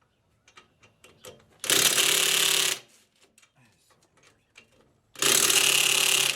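Handheld power driver running two short bursts of about a second each, driving fender-liner screws until they stop; faint clicks of handling between the bursts.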